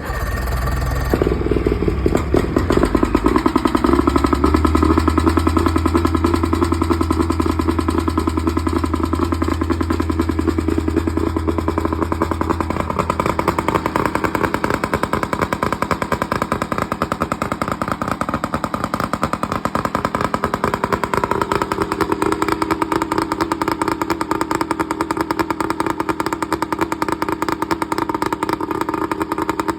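Boat engine firing up on its first test start and running steadily, with a change in its pitch a little past 20 seconds in.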